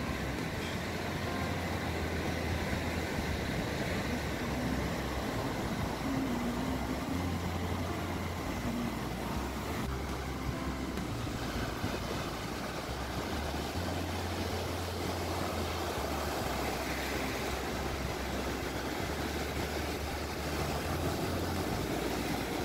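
Atlantic Ocean surf washing on the beach: a steady rushing noise, with a low rumble that swells and fades every few seconds.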